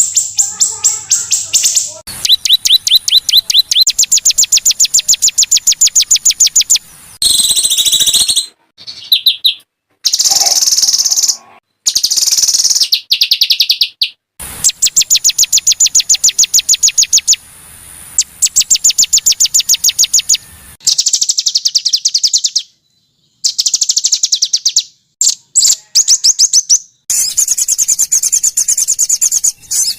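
Small songbirds singing fast, high-pitched trills of rapidly repeated notes: harsh rapid-fire 'tembakan' phrases. They come in runs of one to several seconds that start and stop abruptly, with short silent gaps as one recording is cut to the next.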